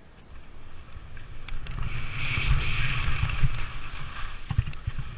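Skis scraping and sliding on steep snow, building up about a second in and loudest in the middle, with wind buffeting the microphone and a few sharp knocks near the end.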